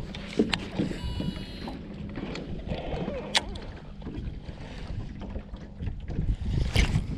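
Wind buffeting the microphone and water lapping against a small aluminium jon boat's hull, with a few sharp clicks from a baitcasting reel being handled.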